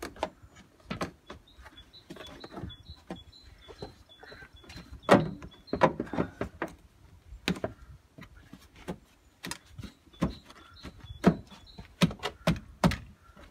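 Irregular clicks, taps and knocks of plastic trim parts and clips being handled and pressed into place, with a faint high-pitched beeping repeating in the background.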